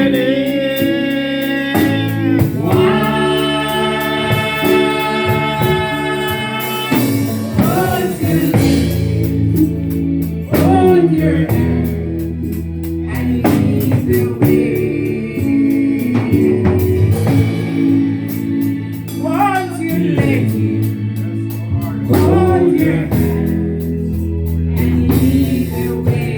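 Gospel music with singing over bass, guitar and drums, with long held sung notes.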